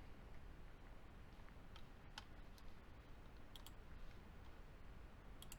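Faint computer mouse clicks, a few single ones and a couple of quick press-and-release pairs, over a low steady room hum.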